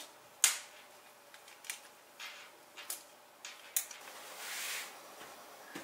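Hands handling a zippered fabric pencil case and pens: a series of sharp clicks and taps, then the zipper pulled for about a second near the end.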